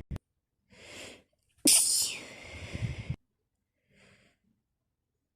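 A woman's wet, snotty sneeze during a sneezing fit: a short in-breath about a second in, then one loud sneeze that trails off, with a faint breath near the end.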